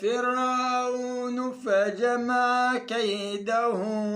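A solo male reciter chants the Quran in the melodic tajwid style. He draws out long vowels with wavering ornaments, and takes short pauses between phrases.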